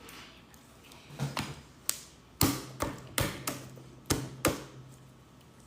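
About ten light taps and clicks over three seconds, irregularly spaced, as small objects are handled and set down.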